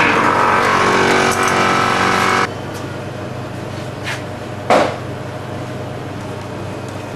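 Vibrating table for compacting concrete running with a loud steady buzz, which cuts off abruptly about two and a half seconds in. A low steady hum remains, with a faint click and then a short sharp knock near five seconds.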